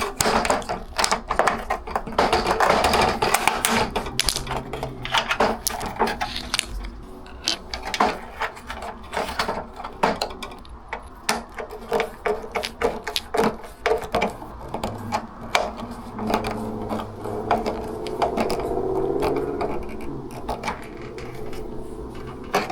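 Many irregular clicks, knocks and rattles of hand work on a screen door's metal frame and replacement wheel assembly as the next wheel is fitted with wood screws.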